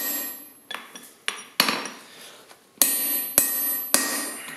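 Hand hammer striking a punch driven into a red-hot block of tool steel on an anvil, punching a hole through it. A few light taps are followed by four heavy blows at uneven intervals, each with a bright metallic ring.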